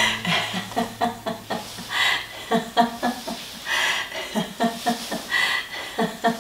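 Laughter-yoga free laughter: rapid chains of short 'ha-ha' laughs, one syllable after another with no words.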